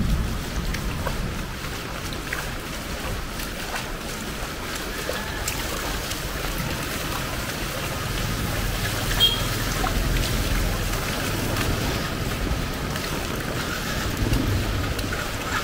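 Heavy rain falling on a city street, a steady hiss of water, with the low rumble of motor traffic and wind noise on the microphone.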